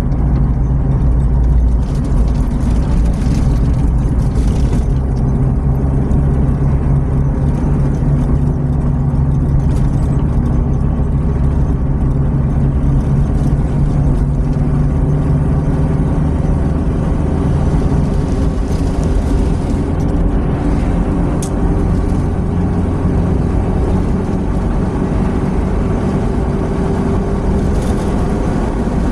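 Opel Blazer's engine and tyre noise heard inside the cabin on the highway: a steady drone, with the engine note slowly rising through the second half as the SUV accelerates.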